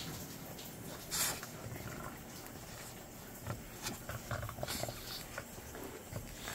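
Dogs sniffing and moving at a woven laundry basket: a Boston terrier inside it and another dog nosing at its rim. There is one sharp, noisy burst about a second in and a few soft, short sounds past the middle.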